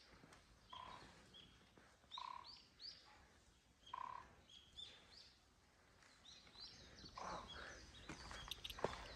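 Faint birds chirping outdoors: short calls repeated every second or so, with a few sharp clicks near the end.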